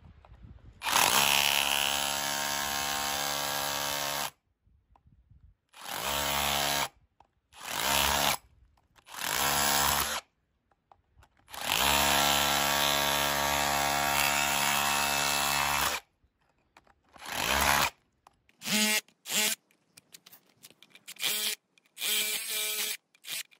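Cordless hammer drill in hammer mode, its chisel bit chipping the corner off a concrete slab. It runs in repeated bursts, the longest about four seconds, then in quick short blips near the end as concrete chips break away.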